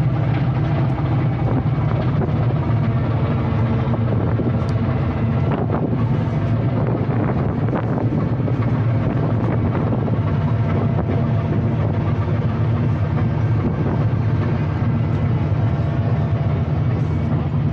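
A ferry's engines running steadily with a deep, unbroken drone, heard from the open deck with wind noise on the microphone.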